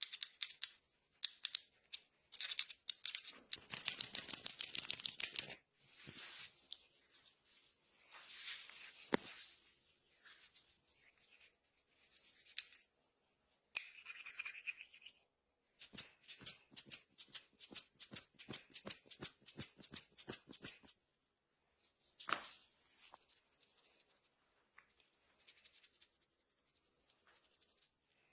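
Hands working a barber's head massage: rubbing and scratching through hair and over the scalp, with scattered taps. Past the middle comes one sharp click, then a run of rapid, even taps, about five a second, for some five seconds.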